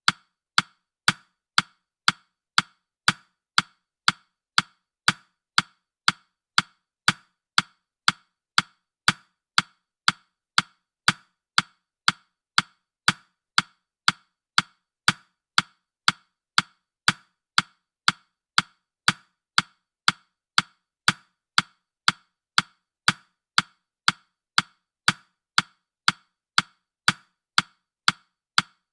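Countdown timer's ticking-clock sound effect: short, sharp ticks, evenly spaced at about two a second.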